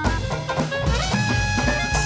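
Traditional New Orleans jazz band playing live: horns over a steady bass-and-drum beat, settling on long held notes about halfway through.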